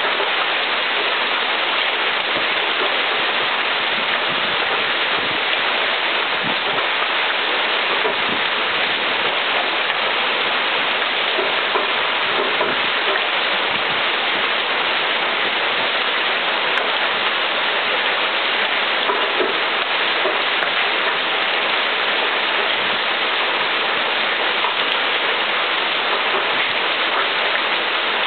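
Large hail and heavy rain pelting down steadily on the ground and parked cars during a severe thunderstorm.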